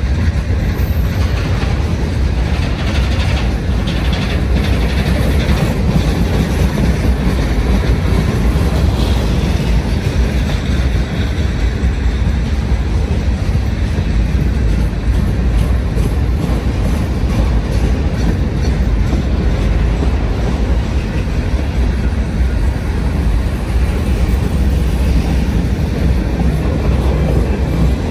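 Freight train rolling past close by, a steady low rumble of cars on the rails.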